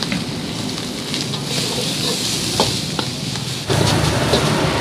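Rice stir-frying in a steel wok over a gas flame: a steady sizzle with a metal ladle clinking and scraping against the wok. A louder low rumble joins abruptly near the end.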